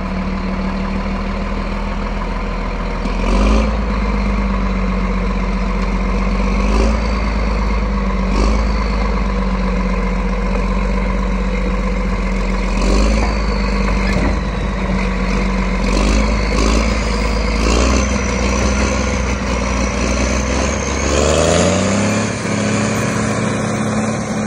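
Caterpillar D7R Series 2 bulldozer's Cat C9 diesel engine running steadily as the dozer tracks down off a trailer, with repeated loud clanks of the steel tracks on the deck. Near the end the engine revs up and holds a higher pitch, with a high whine rising over it.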